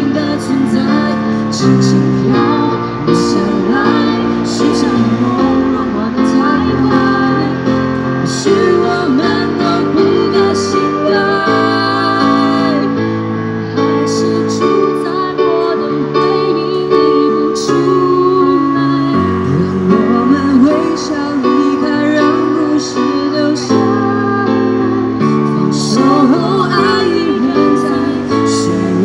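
A female and a male singer sing a Mandarin pop duet into microphones, accompanied by an electronic keyboard playing sustained chords.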